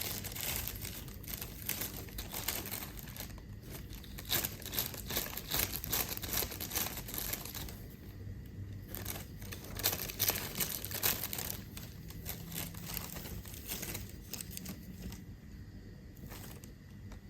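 Plastic bag crinkling and rustling in irregular bursts, thinning out over the last few seconds.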